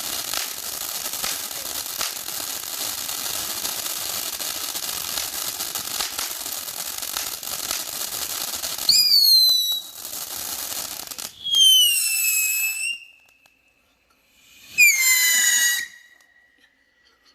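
500-gram multi-shot firework fountain spraying with a steady hiss and fine crackle, which cuts off about eleven seconds in. Three loud whistles, each falling in pitch and then levelling off, come from its whistling stage about nine, eleven and fifteen seconds in.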